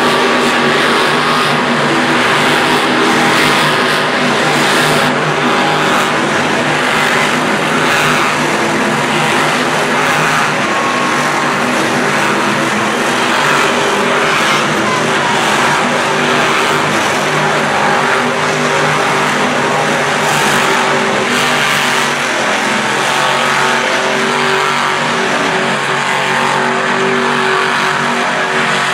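Many monster trucks' supercharged V8 engines running and revving together, a loud, steady, dense din with no single engine standing out.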